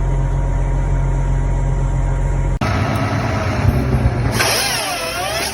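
Heavy machine engine running steadily with a low drone. About two and a half seconds in it cuts abruptly to a different machine sound, which carries a wavering whine that bends up and down in pitch.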